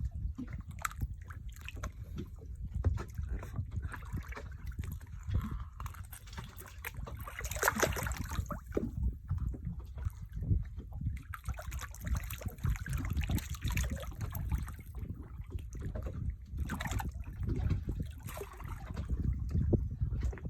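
Seawater sloshing and splashing, swelling in waves of hiss at times, over an uneven low rumble like wind buffeting the microphone.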